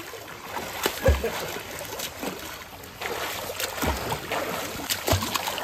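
Water splashing and sloshing, with a few dull low thumps.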